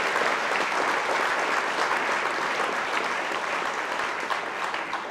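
Audience applause from a hall full of people clapping, steady and then dying away near the end.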